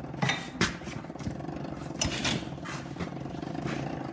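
Irregular clinks and knocks from the Coleman 100cc dirt bike being handled and moved over a concrete floor, over a steady low hum.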